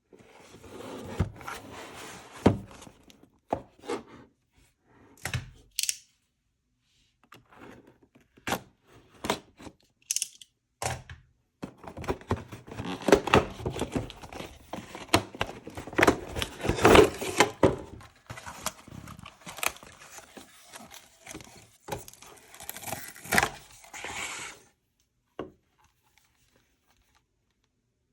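Hands unpacking and handling toys and their packaging: rustling and tearing with many sharp clicks and knocks, busiest in the middle, stopping about three seconds before the end.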